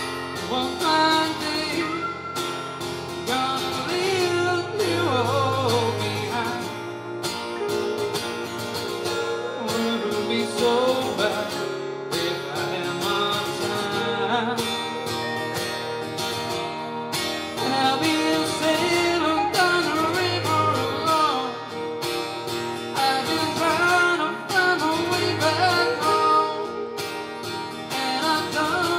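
A man singing over two guitars, one acoustic and one electric, in a live duo performance.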